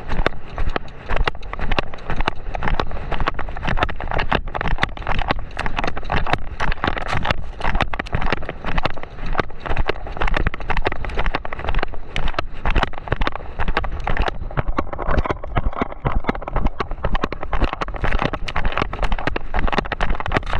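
A horse's hoofbeats on sand at a fast gait, a steady stream of dull thuds, with wind rushing over the chest-mounted camera's microphone.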